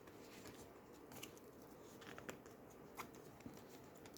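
Near silence with a few faint, sparse clicks and taps of oracle cards being handled and turned over.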